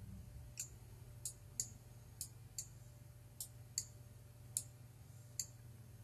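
Computer mouse clicking faintly about ten times at an uneven pace, as vertices are picked with a merge tool, over a steady low hum.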